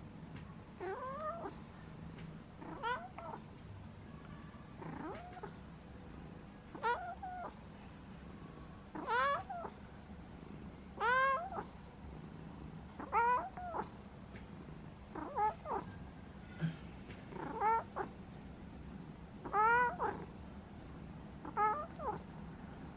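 A cat meowing over and over, about eleven drawn-out meows evenly spaced roughly two seconds apart.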